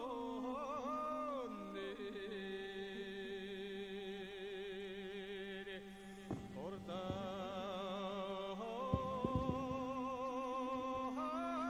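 Mongolian long song (urtiin duu) sung with morin khuur (horse-head fiddle) accompaniment: long held notes with a wavering, ornamented pitch over a low steady tone. A few short knocks come about nine seconds in.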